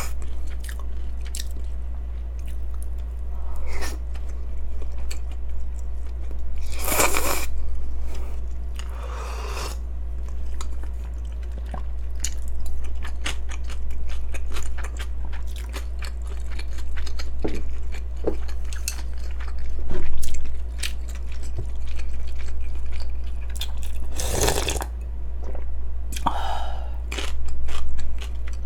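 Close-up chewing and crunching of yeolmu naengmyeon, cold buckwheat noodles with crunchy young radish kimchi, with several second-long slurps of the cold broth, two of them near the end as the bowl is tipped up to drink. A steady low hum runs underneath.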